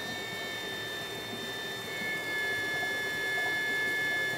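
272 W solar water pump running steadily on a 12 V car battery through a DC-DC converter: a low hum with a high electronic whine. About halfway through the whine shifts slightly and grows a little louder as the outlet valve is closed down and the pump works against rising pressure.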